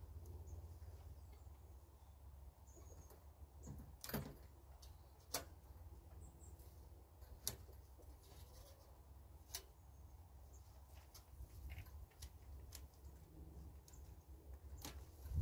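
Faint, scattered snaps and crackles of Russian vine stems being pulled and broken away by hand from around a chimney-top weather vane, a few sharper snaps standing out, over a low steady rumble.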